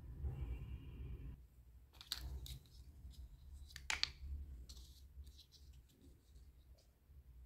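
Small pink plastic toy chairs and table clicking and scraping against each other as they are handled, with a few sharper clicks about two and four seconds in, then lighter ticks.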